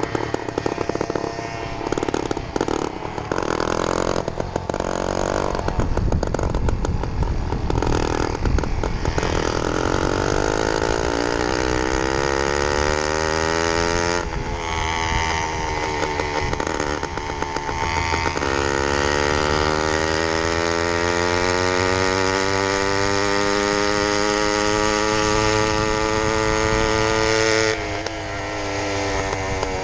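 Small two-stroke engine of a motorized bicycle running under way. The revs climb steadily twice as it accelerates, dropping off sharply about halfway through and again near the end as the throttle is let off.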